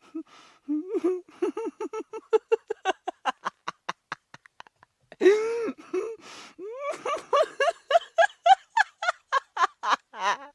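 A person laughing hard in two long runs of quick, short pitched bursts, about five a second, with a louder drawn-out whoop about halfway through.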